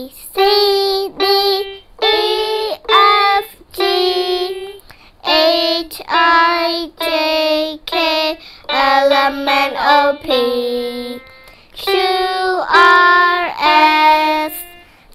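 Young girls singing a song, held notes in short phrases with brief breaks between them.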